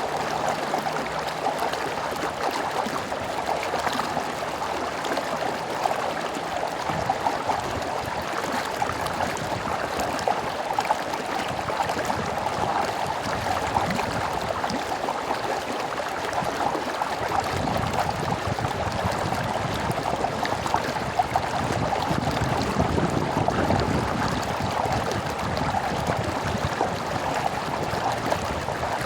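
Stream water flowing, a steady rushing babble with fine splashy ticks. About two-thirds of the way through, a deeper low rumble joins in.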